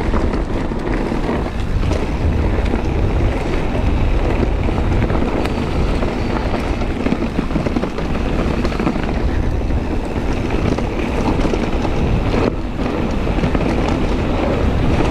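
Wind buffeting a handlebar-mounted action camera's microphone during a fast mountain-bike descent, mixed with knobby tyres rolling over dry dirt and the bike rattling over bumps. The noise is steady and dense, with a brief lull about twelve seconds in.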